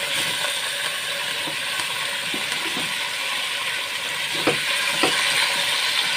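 Chicken and potato pieces sizzling steadily as they fry in hot oil in a metal pot, stirred with a spatula that knocks against the pot a few times, twice more loudly a little past the middle.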